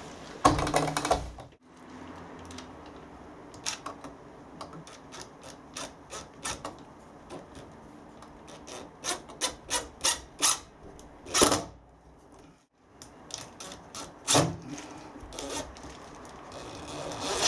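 Wood screws being turned by hand into a wooden window frame: a run of short rasping strokes and clicks, some in quick runs of several a second, with a few louder knocks.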